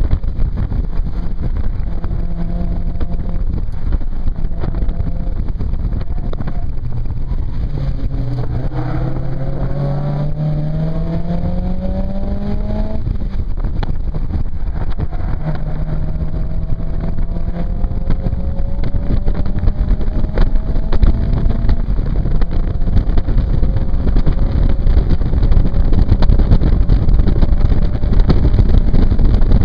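Naturally aspirated 1.8-litre four-cylinder engine of a Mk1 Mazda MX-5 accelerating hard on track, heard from the open cockpit. The engine note climbs through the revs, drops at a gear change about 13 seconds in, and climbs again, over wind noise on the microphone that grows louder near the end.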